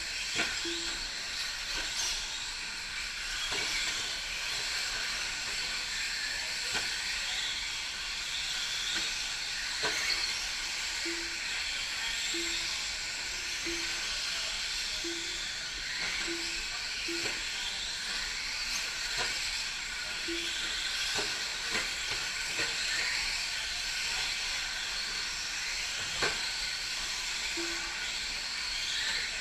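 Battery-electric 4WD short-course RC trucks racing on a dirt track: a steady hiss and whine from the motors and tyres, with occasional knocks as trucks land or hit the track pipes. Short low beeps recur every second or two.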